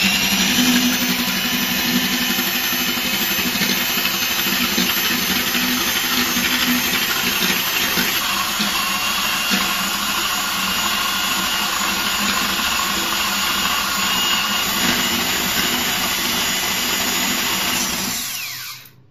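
Electric hand mixer running steadily, its beaters whisking a thin milk-and-oil mixture in a glass bowl; the motor stops near the end.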